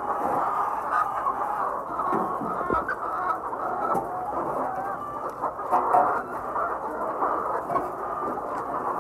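A flock of egg-laying hens clucking, many birds at once in a dense, unbroken chatter.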